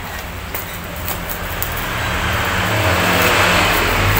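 A few sharp snips and crinkles as scissors cut into a plastic parcel bag, then the steady drone of a motor vehicle's engine growing louder through the second half.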